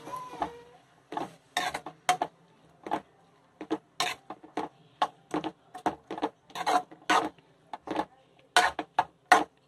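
A spoon scraping and clinking against a steel kadai as chopped onion, tomato and capsicum are stirred, in short irregular strokes about twice a second.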